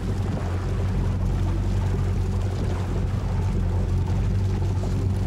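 Boat motor running steadily at trolling speed, a low even drone with no change in pitch.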